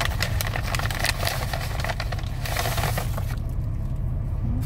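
Paper takeout bag rustling and crinkling as food is taken out of it, busiest for the first three seconds, over a steady low hum of the car.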